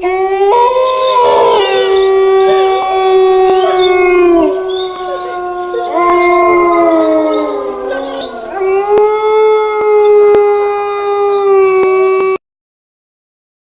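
Horror ringtone: a long held tone with several overlapping tones gliding up and down over it, cutting off suddenly about twelve seconds in.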